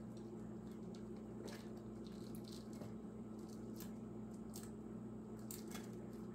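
A knife cutting into crisp fried ripe-plantain sorullos on a paper-towel-lined plate: a few faint, short crunches and scrapes over a steady low hum.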